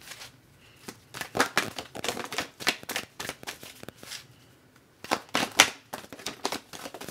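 A deck of oracle cards being shuffled by hand: two spells of rapid card-on-card flicking with a brief pause between.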